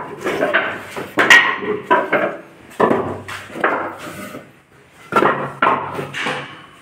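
Loose wooden planks knocking and clattering against each other as they are shifted by hand, a series of sharp knocks at uneven intervals with a pause in the middle.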